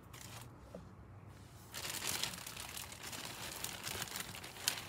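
Packaging crinkling as it is handled and opened. Quiet at first, it becomes a steady run of crackles from about two seconds in, with one sharp crackle near the end.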